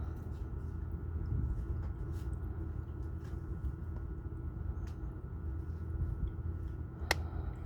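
Steady low mechanical hum and rumble with a faint constant tone, and a single sharp click about seven seconds in.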